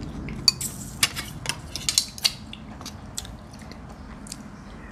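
Tableware and clam shells clicking and clinking during a meal: a spoon tapping and scraping a plate and steamed clam shells being handled, several sharp clicks with most in the first three seconds.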